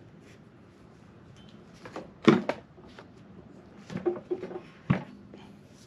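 A few short knocks and clunks of metal being handled: a bare F23 crankshaft being turned and shifted on a cloth-covered bench. The loudest knock comes about two seconds in, and a cluster of three follows near the end.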